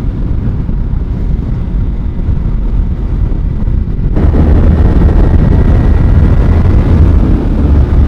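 Wind rush and engine noise on a helmet-mounted camera microphone while riding a Kawasaki Z300 parallel-twin motorcycle. It jumps suddenly louder about four seconds in and stays loud.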